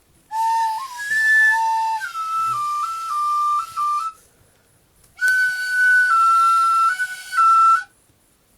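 Cheap tin whistle played in two short phrases of held notes that step up and down, with a pause between them and an airy hiss over the tone.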